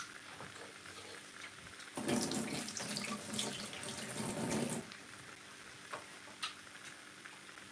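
Kitchen tap running for about three seconds, starting about two seconds in, then two faint clicks.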